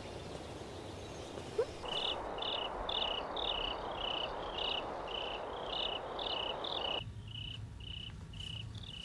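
Crickets chirping at night, short high chirps about three a second, over a soft hiss that stops about seven seconds in, leaving a low hum.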